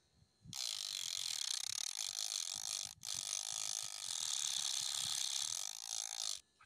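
Small homemade DC-motor disc sander grinding against the edge of a wooden block: a loud rasping hiss with a wavering motor whine. It starts about half a second in, breaks off for a moment about three seconds in, then runs again until just before the end.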